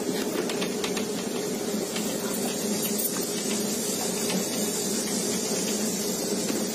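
Steady hum and hiss of a tour boat's machinery, heard inside its passenger cabin, with a few light clicks near the start.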